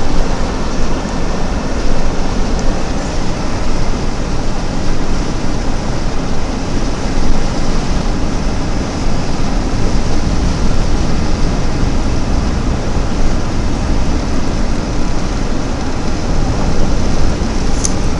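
Steady, loud rumble and hiss of a vehicle driving on a highway through a wind-driven snowstorm: road noise and wind noise together, strongest in the low end.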